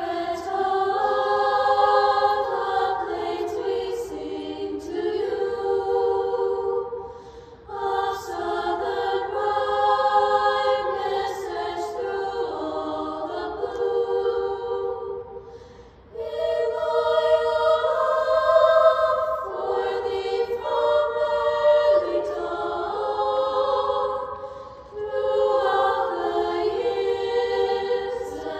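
A girls' choir singing unaccompanied in several parts, in long sustained phrases with brief pauses for breath between them.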